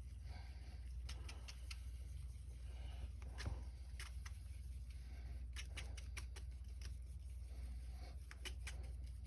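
Irregular light scraping and tapping of a stick stirring two-part plastic epoxy on a desk surface, over a steady low hum.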